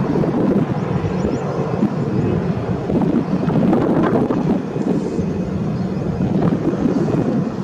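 Wind buffeting the microphone over a low rumble from the CFM56 jet engines of a distant Airbus A321 rolling along the runway.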